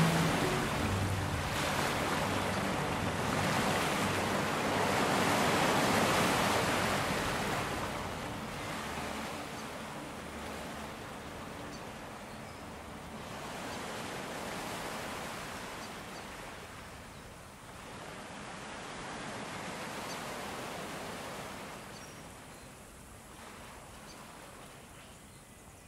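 Ocean surf: waves breaking and washing in, swelling and ebbing every few seconds, then slowly fading out toward the end.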